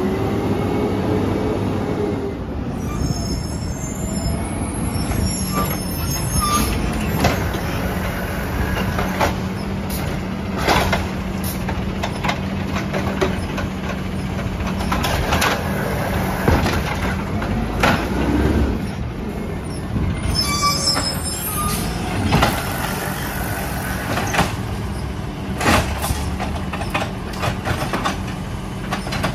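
Peterbilt 320 garbage truck's engine running steadily while its automated side-loader arm lifts and dumps trash carts. The hydraulic arm rises with a whine, and the carts clank and bang repeatedly as they are tipped, shaken out and set back down.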